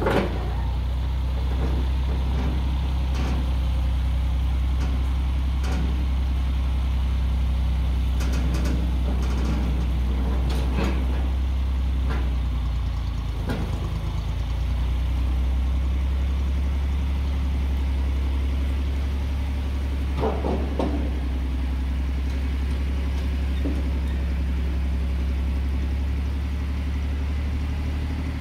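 Farm tractor engine running steadily at low speed while it moves a loaded cart, with a few short knocks and rattles over the engine.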